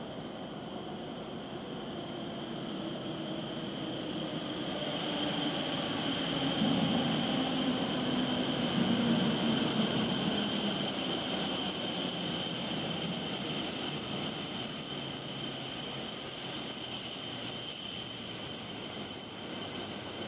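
E7 series Shinkansen train pulling slowly into the platform. Its running noise grows louder over the first six seconds as it nears, then holds steady as the cars roll past. A steady high-pitched whine sits over it throughout.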